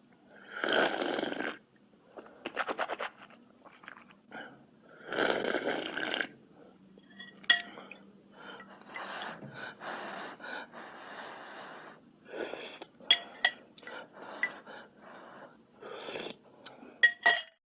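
Eating sound effects: a run of noisy, mouth-like bursts each lasting about a second, with several sharp clinks like utensils on a dish near the middle and end.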